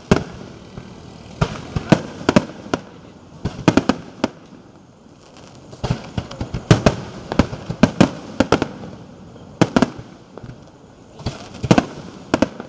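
Fireworks display: aerial shells bursting in irregular sharp bangs, several coming in quick clusters, with short lulls between.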